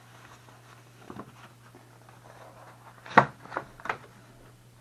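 A few sharp knocks and clacks of objects being handled on a table, the loudest about three seconds in with two smaller ones right after it, over a steady low hum.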